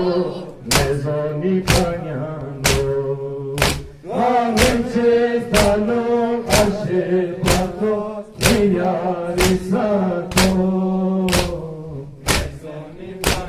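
Men chanting a Balti-language noha, a Muharram lament, while the congregation beats their chests in unison about once a second, each beat a sharp slap over the singing.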